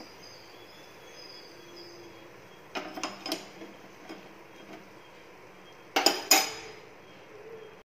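Steel slotted spoon clinking and knocking against a metal kadai as fried bondas are lifted from the oil: two clusters of clinks with a short ring, about three seconds in and about six seconds in, the second louder.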